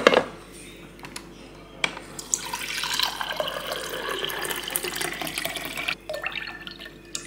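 A sharp knock, then a refrigerator's built-in water dispenser running a stream of water into a cut-crystal tumbler, stopping about six seconds in.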